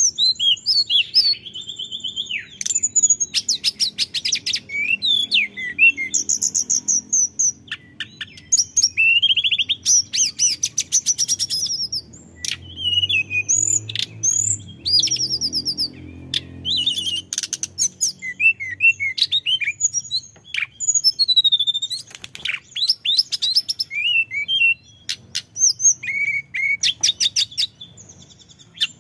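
Male hill blue flycatcher singing a long, continuous song of high whistled phrases, sweeping notes and fast trills, with hardly a pause between them.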